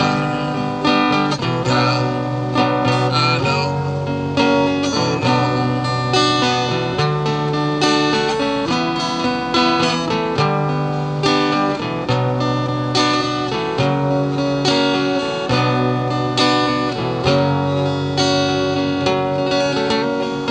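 Acoustic guitar played live as an instrumental, with chords strummed about twice a second and changing every second or two.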